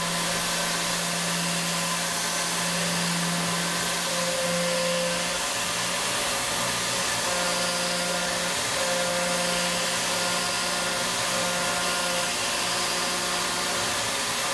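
CNC milling machine spindle driving a quarter-inch end mill through a finishing cut on a small metal part, under a steady hiss of coolant spray from a nozzle aimed at the cutter. A steady hum runs under it, with a fainter higher whine that comes and goes as the cut changes.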